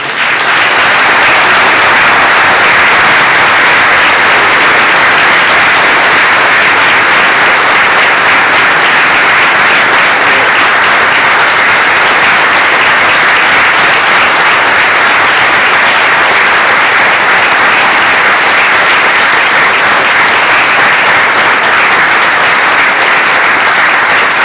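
Audience applauding, loud and steady, easing off slightly near the end.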